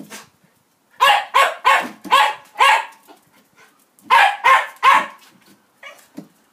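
Small terrier barking in two quick runs: about five sharp barks, then, after a short pause, three more.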